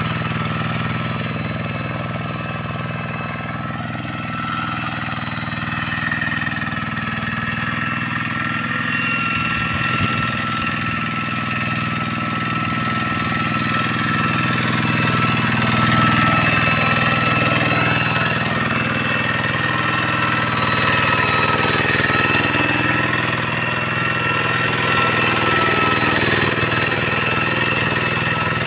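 Hand tractor's single-cylinder diesel engine running steadily under load, with a steady high whine over the engine's beat.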